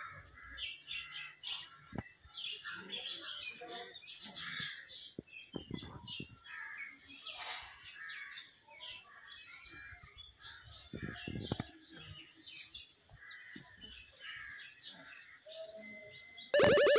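Birds chirping and calling, many short scattered calls with a few crow-like caws among them. Near the end, loud music cuts in abruptly.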